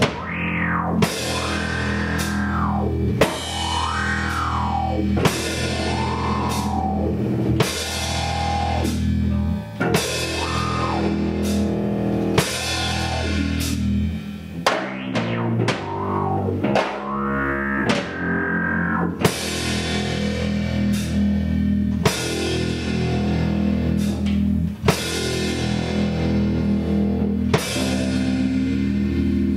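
Heavy rock music: distorted electric guitar riffing over a full drum kit, with cymbal crashes about every two seconds.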